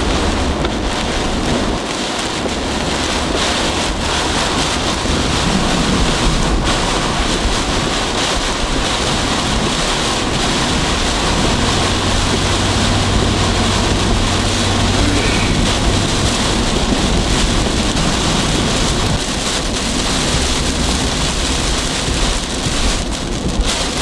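Heavy wind-driven rain pelting a car from outside, over a steady low drone of the engine and tyres. The rain is driven by hurricane-force straight-line winds.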